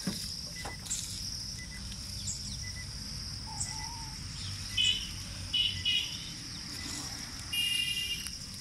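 Steady high-pitched insect drone, with a few short bird calls about five, six and eight seconds in.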